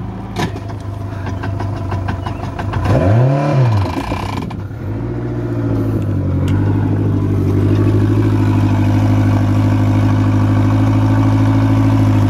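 Mercury 115 hp fuel-injected four-stroke outboard running on a flushing hose: it revs up and back down once about three seconds in, then settles into a steady run in forward gear.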